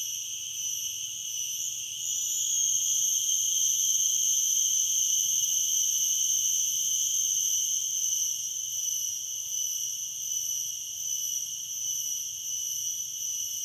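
Garengpung cicadas calling together in a continuous shrill, high-pitched drone. It swells a little louder about two seconds in, then eases back slightly.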